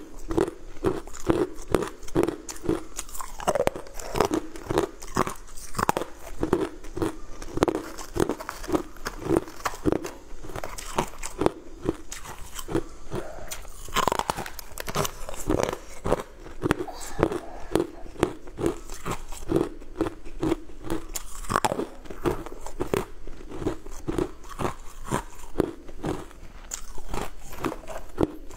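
Close-up biting and chewing of hard, powder-dusted frozen ice pieces: many sharp, crackling crunches over a quick, even chewing rhythm.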